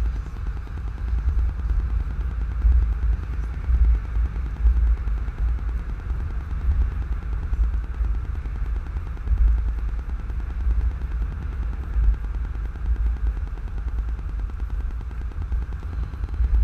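Steady low rumble of a vehicle driving at highway speed on wet road, heard from inside the cabin: engine and tyre noise.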